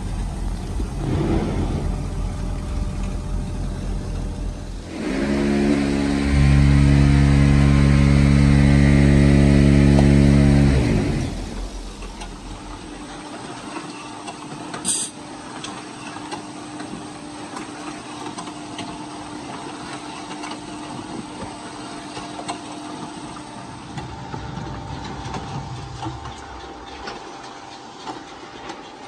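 Concrete-plant machinery running: an aggregate conveyor belt and its drive motor, with a loud, steady engine-like drone from about five to eleven seconds in. It then drops to a quieter steady hum from the concrete mixer, with a faint steady tone and a single sharp click.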